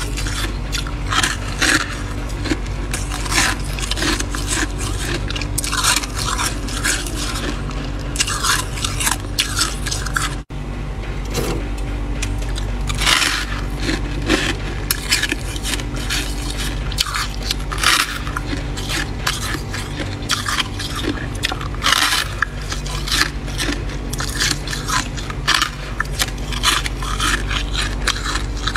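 Thick freezer frost being scraped loose, a run of quick, irregular crunchy scrapes over a steady low hum, with a brief break about ten seconds in.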